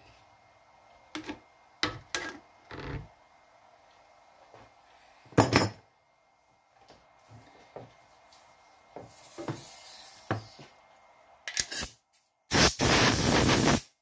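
Scattered metal clinks and knocks of hand tools working at a badly rusted retaining ring inside a Massey Ferguson GC2310 loader's hydraulic cylinder, the loudest about five seconds in. Near the end a loud, harsh rushing noise lasts over a second and cuts off suddenly.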